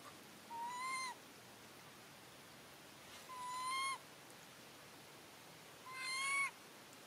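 Young long-tailed macaque giving three drawn-out coo calls, each under a second, with the pitch rising slightly and dropping at the end.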